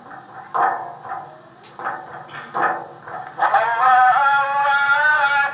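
Male voice chanting a madih, a religious praise song: after a pause broken by a few short sounds, a long, wavering held phrase begins about three and a half seconds in.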